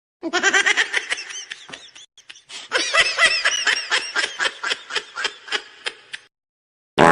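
Cartoonish meme laugh sound effect: a high-pitched snickering giggle made of rapid pitched 'hee' pulses, in two runs with a short gap about two seconds in, fading out toward the end. A brief different sound cuts in right at the end.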